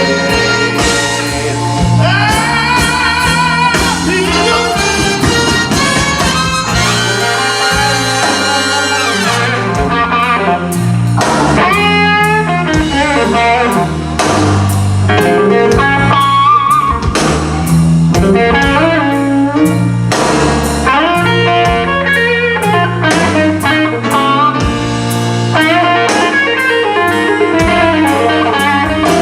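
Live blues band playing an instrumental passage: bass and drum kit under lead lines with bent notes.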